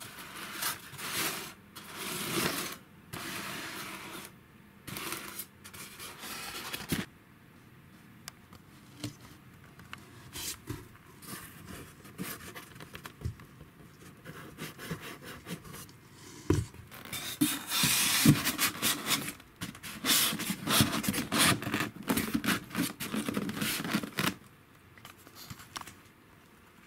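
Polystyrene foam blocks and cardboard being handled: irregular scraping and rubbing. Scattered clicks come in the middle, and a longer busy spell of dense scratching follows in the second half.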